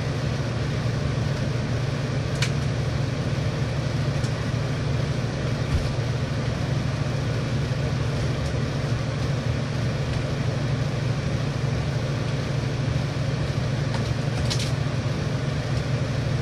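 Air conditioner running: a steady hum with an even hiss over it, into which the owner says the power inverter probably adds some noise. A couple of faint clicks come about two and a half seconds in and again near the end.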